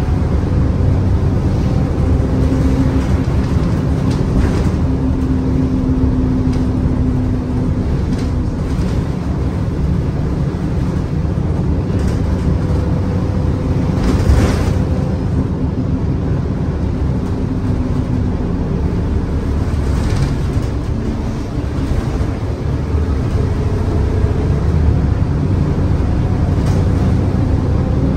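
A bus in motion, heard from inside the passenger saloon: engine and drivetrain rumble with road noise, and a droning tone that comes and goes. Occasional knocks and rattles come from the body, the strongest about halfway through.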